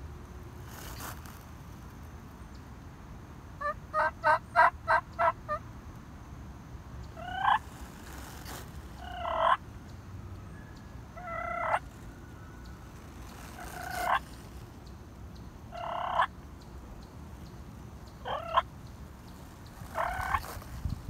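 Wild turkey toms gobbling: one rapid rattling gobble about four seconds in, then a string of short rising calls about every two seconds.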